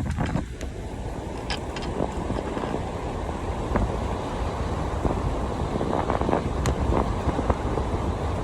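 A steady low rumbling noise with a few faint clicks scattered through it.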